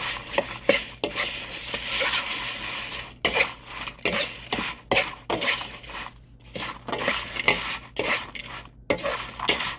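A utensil stirring and scraping in a dish with repeated clinks, mixing seasoning into cooked food.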